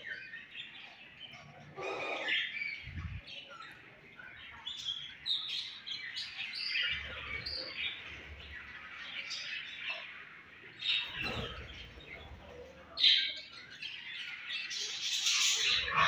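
A flock of budgerigars chattering and chirping continuously while feeding together, with many overlapping high warbles and a few louder chirps.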